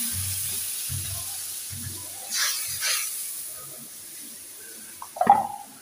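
Food sizzling in hot cooking oil in a pan, the hiss slowly dying down. Two short scratchy sounds come near the middle, and a sharp knock near the end.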